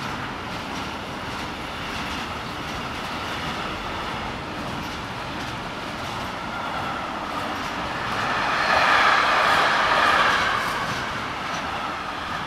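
Train passing on the tracks, its running noise swelling to a peak about nine seconds in and then easing off.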